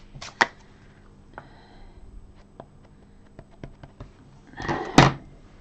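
Light clicks and taps of a clear acrylic stamp block and an ink pad being handled and set down on the desk, with a sharper click about five seconds in.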